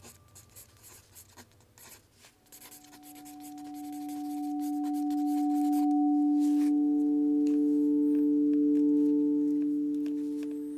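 Faint scratching of a mechanical pencil writing on notebook paper, then a low sustained pure tone swells in, joined by two higher sustained tones; together they grow to a soft peak and fade away near the end.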